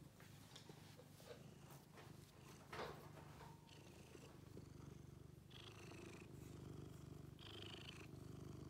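Blue-point cat purring steadily, a low continuous rumble, with a short sharp noise a little before three seconds in.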